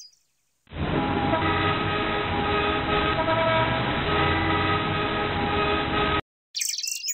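Traffic sound effect: vehicles running with horns honking over one another. It starts suddenly about a second in and cuts off abruptly near the end.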